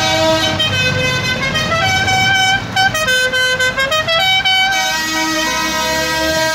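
Multi-tone vehicle air horn sounding a held chord, then about half a second in playing a tune of short stepped notes for about four seconds before going back to the held chord, with tractor engines running underneath.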